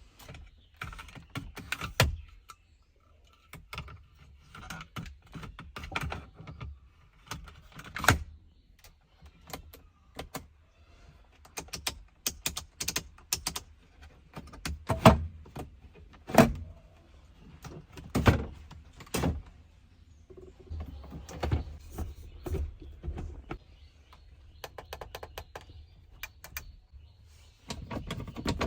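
Irregular sharp knocks and clicks, a loud one every second or two, among fainter rattling.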